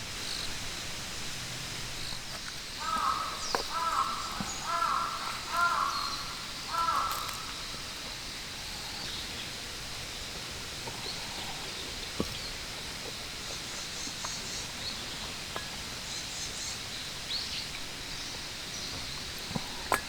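A crow cawing in a quick run of about six calls starting about three seconds in, over steady outdoor ambience with faint chirps of small birds. A single sharp click sounds about midway.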